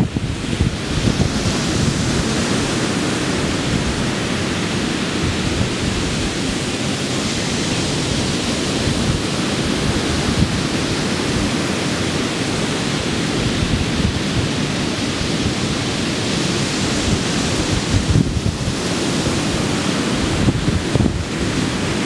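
Pacific Ocean surf breaking and washing up the beach, a continuous rushing hiss with a deep rumble, with wind buffeting the microphone in uneven gusts.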